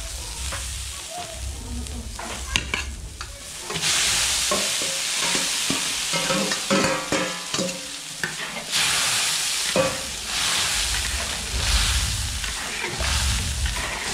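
Wok sizzling while crumbled tofu is tipped in from a metal bowl and stirred through the sauce, the spatula scraping and knocking against the wok.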